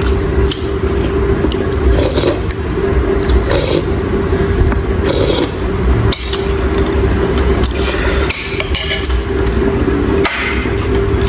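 Utensils scraping and clinking against cookware in short irregular strokes, over a steady hum and low rumble.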